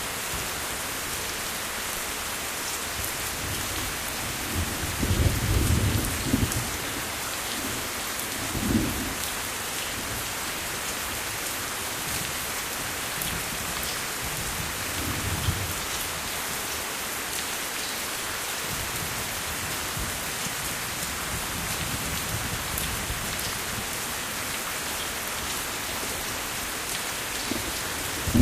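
Steady rain with a few low rolls of thunder: the longest a few seconds in, shorter ones soon after and around the middle, and another starting right at the end.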